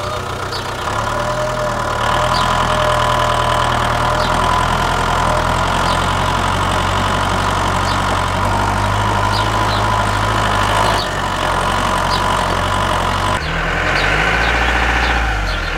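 Tractor engine idling with a steady low chug and faint regular ticks. Its sound shifts abruptly a few times: about two seconds in, and again near eleven and thirteen seconds.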